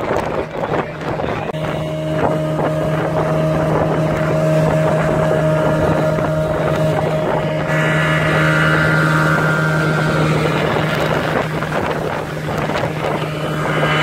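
Outboard motor of a small motorboat running at a steady pitch while underway, with wind noise on the microphone.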